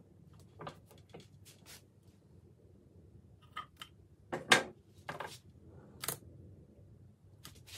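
Clear protective edge tape being handled and pressed onto the edge of a cricket bat: a series of short rustles and clicks, the loudest a little past halfway.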